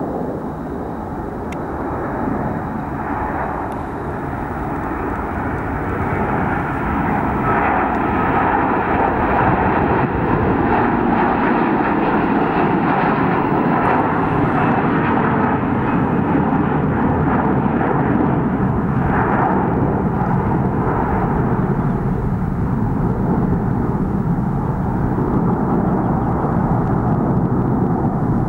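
Airbus A330 twin-engine jet airliner at takeoff thrust, running down the runway and climbing out. The engine noise grows louder over the first several seconds, then holds steady and loud.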